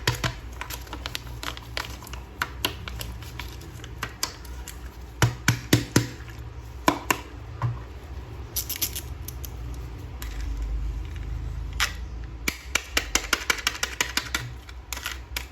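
A plastic toy action figure and its packaging being handled: irregular runs of small plastic clicks and taps, with a brief rustle about nine seconds in.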